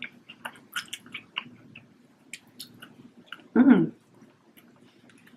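Close-miked chewing and wet mouth clicks of someone eating a burger and fries, with a short, falling hum of a voice about three and a half seconds in.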